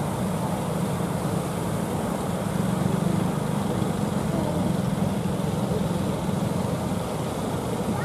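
Engines of several wooden fishing boats running steadily under way, a low drone over the hiss of breaking surf.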